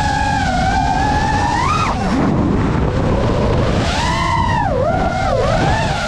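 FPV quadcopter's brushless motors whining, their pitch sweeping up and down with the throttle: a sharp rise and sudden drop about two seconds in, a low slowly rising tone for the next couple of seconds, then quick dips and a climb near the end. A steady rush of wind and prop noise runs underneath.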